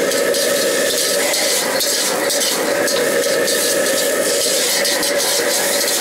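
Gas wok burner running steadily under a wok while noodles are stir-fried in it, with a sizzling hiss and a few light clicks of chopsticks against the wok.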